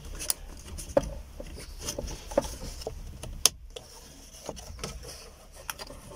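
Plastic wiring connectors and dashboard switch housings being handled and pushed into place: scattered small clicks and light rubbing at irregular moments, the sharpest click about three and a half seconds in.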